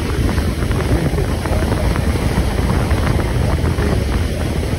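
Steady rumble of a fast passenger ferry under way, with wind buffeting the microphone.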